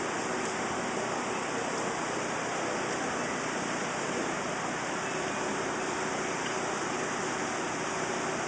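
Flood-swollen brook rushing steadily, a constant even noise of running water.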